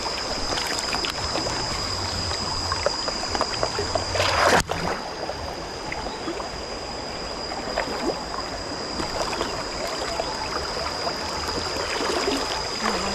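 Water of a small stream flowing steadily, with a constant high-pitched whine over it. There is a brief louder burst about four seconds in that ends in a sharp click.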